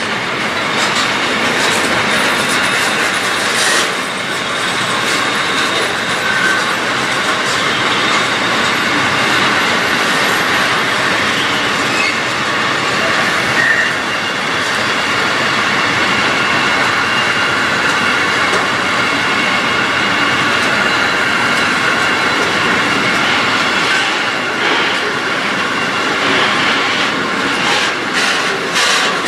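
Intermodal freight wagons carrying swap bodies and containers rolling past at a steady speed: a continuous rush of steel wheels on rail, with a faint high steady tone above it and bursts of clicking as the wheels cross rail joints, thickest near the end.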